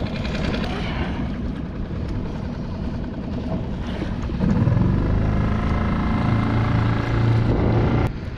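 Small outboard motor of a one-person skiff, with wind and water noise. About halfway through it speeds up to a louder steady run, then cuts off suddenly near the end.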